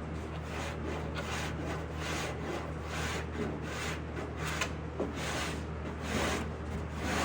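Hardened body filler on a steel car door being abraded by hand in quick back-and-forth strokes, a rough scraping rasp about twice a second over a steady low hum.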